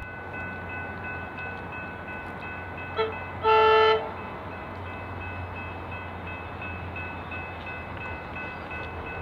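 An approaching electric train sounds its horn: a short toot about three seconds in, then a louder half-second blast. A steady high ringing of level-crossing bells runs under it.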